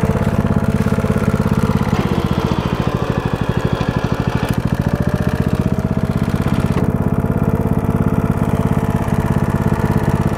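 Walk-behind tractor's small engine running steadily with an even, rapid putter.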